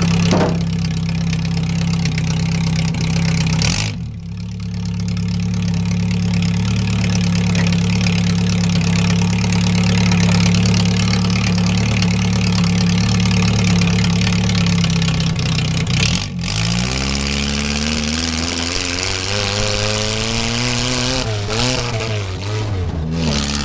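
Ford Mustang demolition derby car's engine running under way, heard from inside the stripped cab: a steady drone for most of the time, with a short dip about four seconds in. After a brief break about sixteen seconds in, the engine note rises and falls several times as the revs change.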